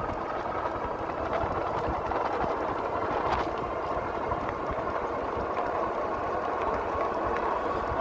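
Pedal-assist e-bike riding along an asphalt road: steady tyre and wind noise, with wind buffeting the microphone and a faint steady high whine.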